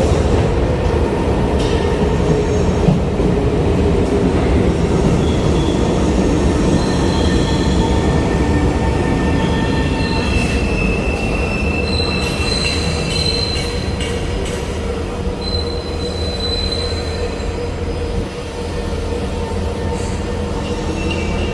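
SMRT C151 metro train heard from inside the car, running on the track with a steady rumble, and the wheels squealing in thin high tones that come and go. The sound eases a little towards the end.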